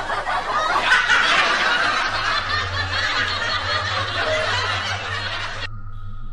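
Laughter, likely several people, fairly loud and steady, that cuts off abruptly about a second before the end.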